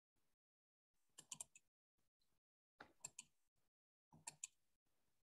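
Computer mouse clicks: three short clusters of two or three sharp clicks, about a second and a half apart, with near silence between them.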